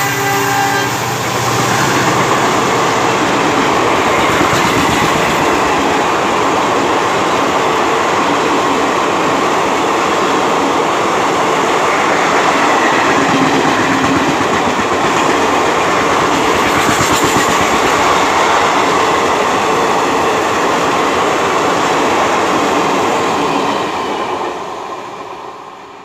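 Indian Railways passenger coaches rushing past at speed, a loud steady rush with the wheels clattering on the track. The tail of the locomotive's horn ends in the first second, and the sound dies away near the end.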